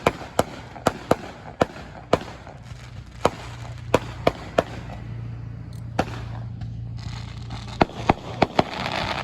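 Fireworks going off: a run of sharp bangs at irregular intervals, sometimes a few a second, with a low steady hum underneath through the middle.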